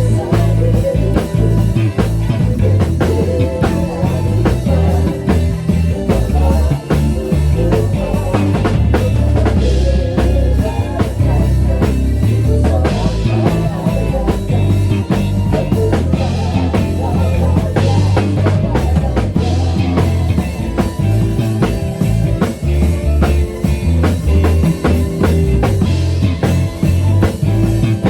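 Rock band music with a drum kit keeping a steady beat.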